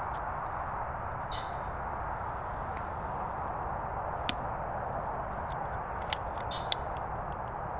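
Three sharp clicks from a small hanging camp lantern being handled and switched on, one about halfway and two close together near the end, over a steady background hiss with faint high bird chirps.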